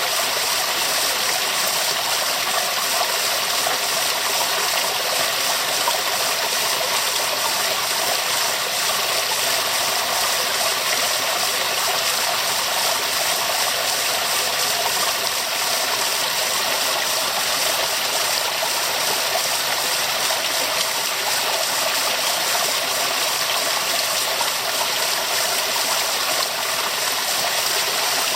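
Waterfall: a steady, even rush of falling water, bright and hissy, with little low rumble.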